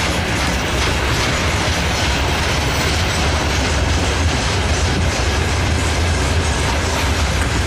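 Covered hopper wagons of a freight train rolling past close by: a steady, loud rumble of wheels on rail, with clickety-clack over the rail joints.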